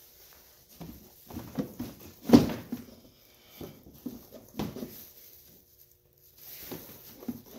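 A cover piece being bent and worked out of the truck's wheel-well area by hand: irregular scrapes and knocks, the loudest knock about two and a half seconds in.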